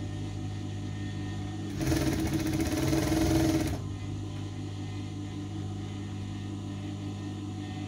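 Sewing machine stitching in one run of about two seconds, starting a couple of seconds in and then stopping. A steady low motor hum continues before and after the stitching.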